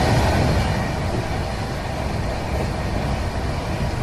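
Steady rumble of a moving passenger train heard from inside the coach, an even low running noise with no distinct clatter or tones.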